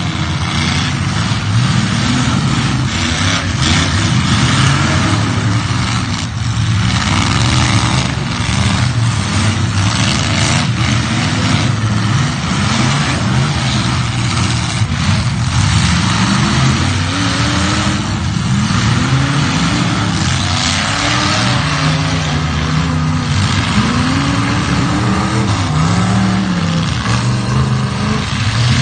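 Demolition derby cars' engines revving hard and repeatedly, several at once, their pitch rising and falling over and over, with occasional crashes of metal on metal.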